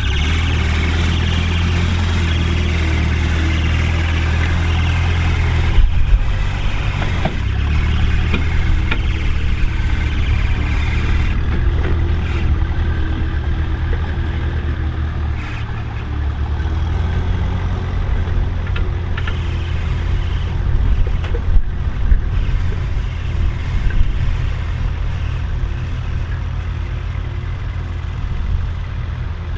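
Ferguson TE20 tractor's four-cylinder engine running steadily as it pulls a disc cultivator through the soil, with a few sharp knocks over the steady hum.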